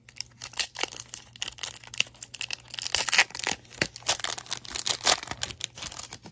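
Foil wrapper of a Topps Chrome baseball card pack being torn open along its crimped seal and crinkling in the hands, a dense run of sharp crackles.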